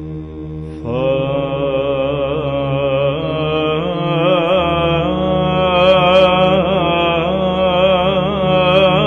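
Byzantine chant: a steady held drone (the ison), with a solo cantor's ornamented, melismatic melody entering about a second in and running on over it.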